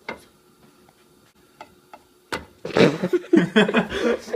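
A few sharp clicks, then from about two and a half seconds in a loud stretch of scraping and clatter as a stick of butter is rubbed around a hot frying pan to melt it.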